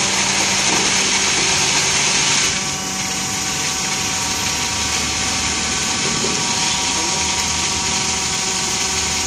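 Hydraulic power pack of a scrap-metal baling press running steadily, a motor-driven pump with a whine. About two and a half seconds in, the high hissing part of the noise stops and the steadier whine carries on.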